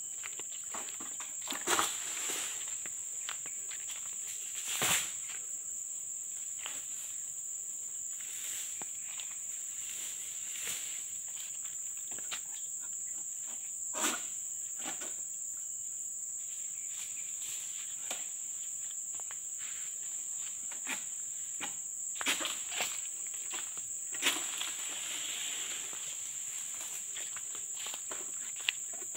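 Steady high-pitched drone of insects, with a few scattered footsteps and knocks on the plantation's leaf litter and cut fronds.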